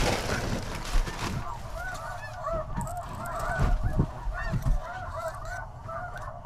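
Snow goose calls: many short, high calls overlapping without a break, with low thumps underneath.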